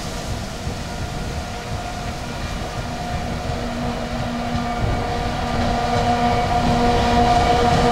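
Pacific National diesel locomotives hauling a coal train approach and pass, their engine drone growing steadily louder over the low rumble of the wagons on the track.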